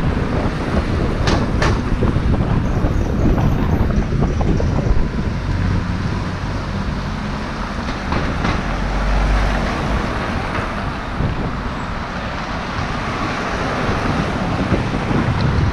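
City street traffic: cars and a van driving past, heard through heavy wind buffeting on the microphone that makes an uneven low rumble. A couple of short clicks come about a second and a half in.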